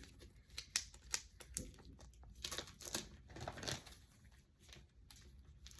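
Faint crinkling and rustling of packaging being handled around a comic book, a run of small scattered crackles that thins out near the end.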